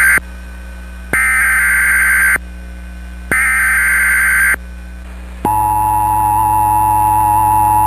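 Emergency Alert System SAME header: buzzy digital data bursts about a second long, repeated with a second's pause between. About five seconds in, a steady two-tone EAS attention signal starts and holds. Together they announce the next emergency alert.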